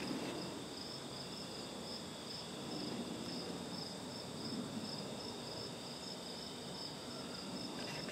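Insects chirping: a steady, evenly pulsing high trill over faint background hiss.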